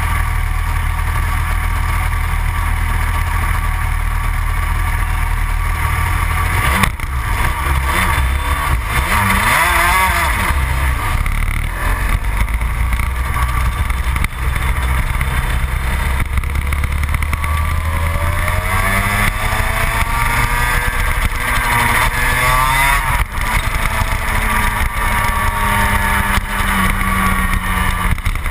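Yamaha TZ250 two-stroke twin in a gearbox superkart, running steady and low while the kart sits still. About seven seconds in it revs up and the kart pulls away hard, the engine note climbing in pitch again and again as it accelerates through the gears.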